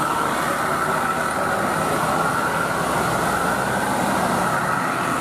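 A bus driving past with steady engine and road noise.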